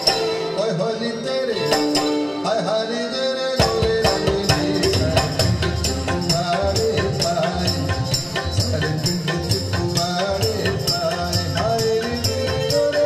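Music playing over floor-standing hi-fi loudspeakers driven by a Luxman amplifier stack: a melody over a fast, steady percussion beat. About three and a half seconds in, a bass line comes in and fills out the low end.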